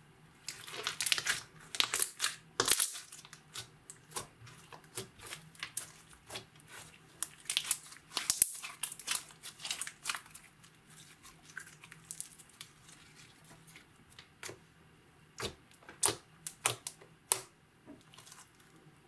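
Sharp crackling and crinkling handling sounds from hands working slime and makeup, in three clusters of quick pops with quieter gaps between.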